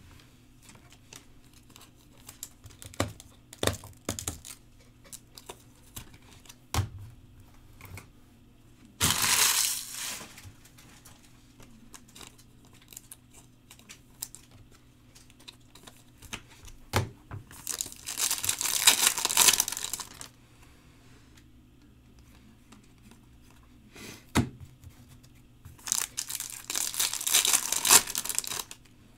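Foil wrappers of 2022 Bowman Chrome trading-card packs being torn open and crinkled: three bursts of ripping and crackling, roughly eight seconds apart, with small clicks and taps of cards being handled in between.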